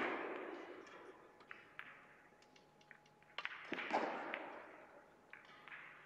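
Russian pyramid billiard shot: a sharp click of the cue striking the ball and balls colliding, then the balls rolling across the cloth. A second sharp knock of ball on ball or cushion comes about three and a half seconds in, followed by more rolling and a few light ticks as the balls settle.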